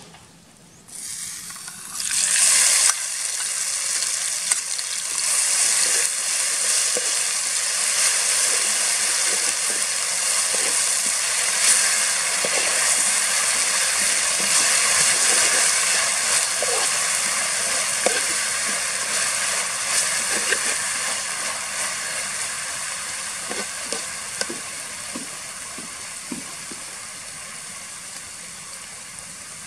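Chopped red chillies and garlic sizzling in hot oil in a metal wok, stirred with a metal spatula that ticks against the pan now and then. The sizzle starts suddenly about two seconds in and slowly dies down over the last third.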